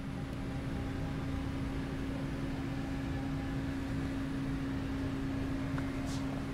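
AMEGA M-3 16mm magnetic film recorder running: a steady motor hum with one clear tone over a low rumble.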